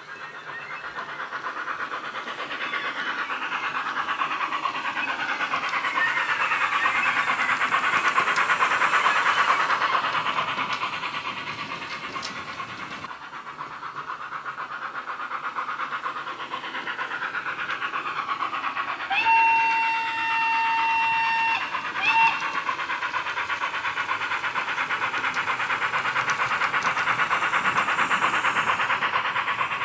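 Bachmann Webb Coal Tank OO-gauge model locomotive running with its coaches, a steady rushing noise of the train and its sound decoder that swells and fades as it passes. About two-thirds of the way through, the Wheeltappers DCC sound file, played through a small sugarcube speaker, gives a whistle held for a couple of seconds, then a short second toot.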